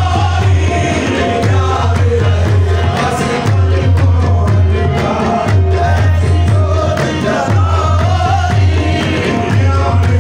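Qawwali music: singing voices over percussion keeping a steady beat, with a pulsing bass drum-like thud.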